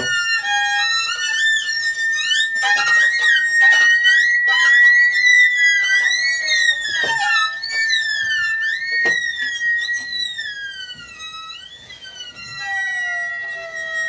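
Improvised experimental music: sliding, swooping string glissandi over a single high tone held steady throughout. Near the end the glissandi thin out and a lower tone glides slowly downward.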